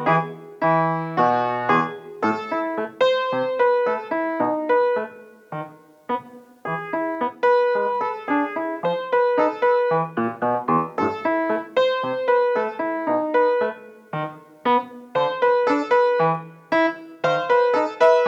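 Solo piano playing a short classical student piece: melody over repeated chords, notes struck and left to decay in rhythmic phrases.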